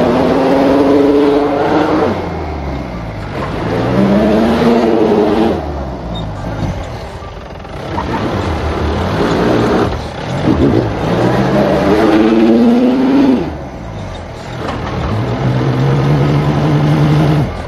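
Mahindra Bolero SLX's diesel engine revving in repeated surges, its pitch climbing each time and dropping back, then held at steady high revs near the end: the driver is trying again and again to power the SUV out of the water where it is stuck.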